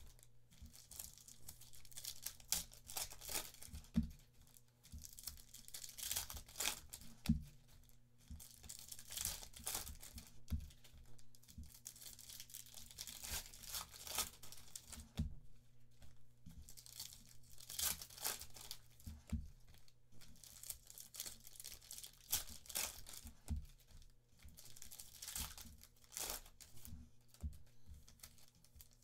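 Panini Phoenix football card packs being torn open by hand, their foil wrappers crinkling and crackling irregularly, with a few sharper knocks as packs and cards are handled on the table.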